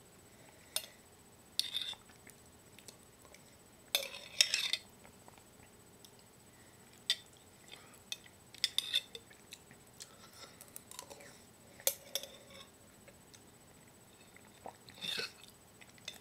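Metal spoon clinking and scraping in a glass jar of pasta sauce, with eating sounds, as sauce is eaten straight from the jar by the spoonful. A handful of short, sharp clicks and scrapes come a few seconds apart, with quiet between.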